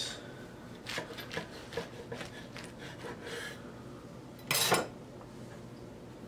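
Knife sawing through a whole-grain bread sandwich on a wooden cutting board: a run of short rasping strokes, then one brief louder scrape about four and a half seconds in.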